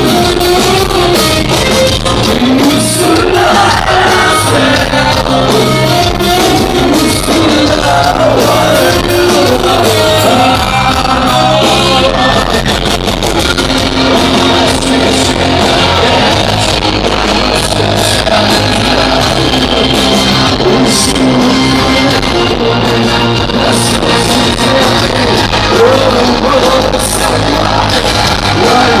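Live rock band playing loud in a concert hall, with a male lead singer singing over it. The vocal line is prominent for the first dozen seconds, thins out around the middle while the band plays on, and returns near the end.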